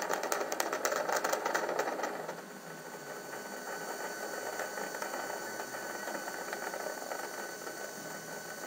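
Space shuttle's rocket engines at launch: exhaust noise with dense crackling for about the first two seconds, then steadier and quieter, with a faint steady tone underneath.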